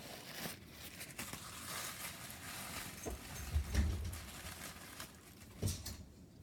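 Packaging rustling and crinkling as a separately wrapped item is unpacked by hand, with a dull thump a little after halfway and a sharper knock near the end.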